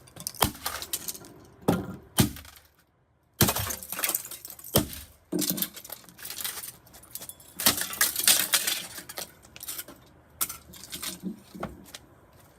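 A Gigabyte GC-W8867D-I Wi-Fi card being smashed: a series of sharp, irregular blows with cracking and clinking of the breaking board and its pieces. The sound stops dead for about half a second a few seconds in, then the blows go on.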